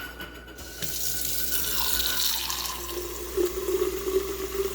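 Water running from a tap into a Nespresso machine's water tank. The flow starts about a second in, and from about halfway a filling tone appears and slowly rises in pitch as the tank fills.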